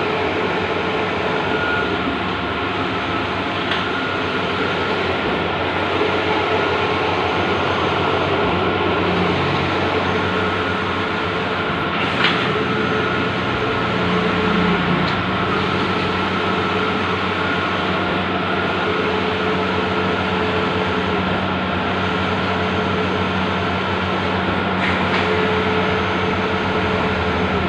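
Bluewin large-format outdoor digital printer running: a steady mechanical whir with a held hum tone.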